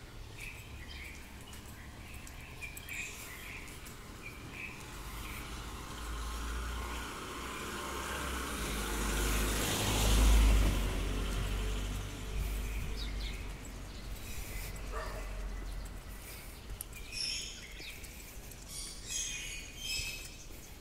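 Street ambience: small birds chirping at the start and again in the last few seconds, with a broad rushing swell and low rumble that builds and fades, loudest about halfway through.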